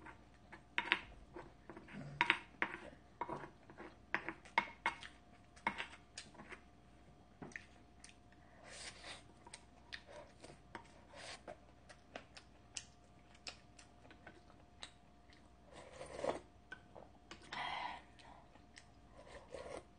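Eating at close range: a wooden spoon clicking and scraping against a ceramic bowl, chewing, and a few slurps of chicken broth from the spoon. The sharp clicks are densest in the first few seconds, and the longer slurping swishes come about nine seconds in and again near the end.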